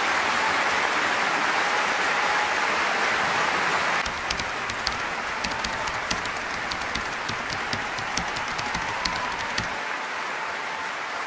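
Opera-house audience applauding at the end of a soprano's aria. The dense applause thins about four seconds in, leaving scattered individual claps.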